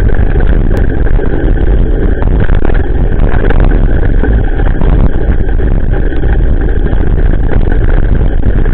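Steady, loud wind rumble and road noise on a bicycle-mounted action camera's microphone while riding a wet gravel road in the rain.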